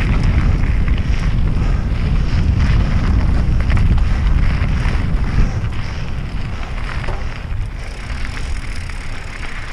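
Wind rumbling on a helmet-mounted camera's microphone over the crunch and rattle of mountain-bike tyres rolling fast down a dirt trail, with scattered clicks from small stones. The wind rumble eases in the second half.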